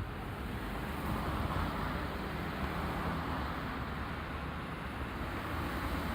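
Road traffic at an intersection: cars running through, a steady wash of engine rumble and tyre noise that swells a little about one to three seconds in.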